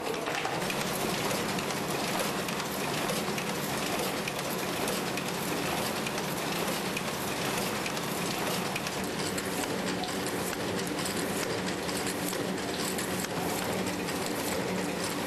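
KAS Mailmaster C4 Compact envelope inserter running, its feeders and transport making a steady, dense mechanical clatter of rapid clicks as paper moves through.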